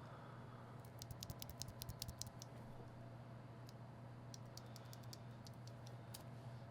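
Mechanical keyboard switches clacking faintly as they are pressed: a quick run of clicks about a second in, then scattered single clicks, over a low steady hum.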